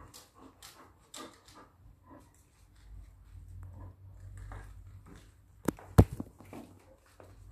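Scuffling and rustling of a dog and cat at play around a bathtub. About six seconds in come two sharp knocks, the second the loudest, then a few lighter clicks.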